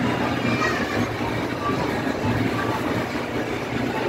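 Steady din of a busy amusement arcade: game machines' electronic sounds and background voices, with a few faint short beeps.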